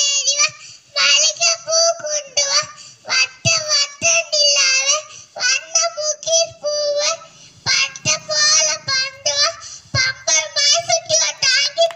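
A young girl singing a song alone into a handheld microphone, her high child's voice in short phrases with brief breaths between them.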